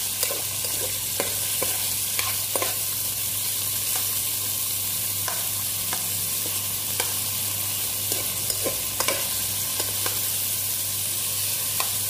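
Sliced red onion and garlic sizzling in hot oil in a pan as they are sautéed, with a metal spatula scraping and clicking against the pan as it stirs them.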